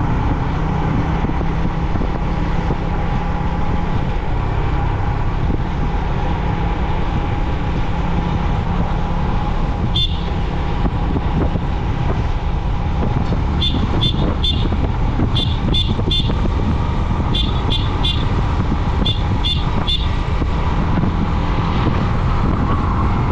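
Yamaha MT-15's single-cylinder engine running steadily under wind and road noise while riding. About ten seconds in comes one short high-pitched beep, then four quick groups of three beeps over the next six seconds.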